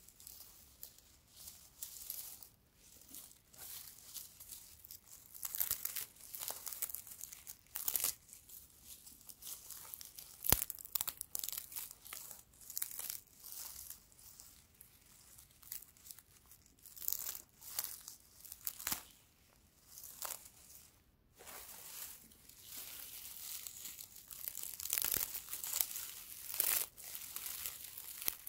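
Fingers rubbing and crumpling a bundle of dry grass stalks: crisp, irregular crackling and rustling in bursts, with one sharp click about ten seconds in and a denser, steadier run of crackling near the end.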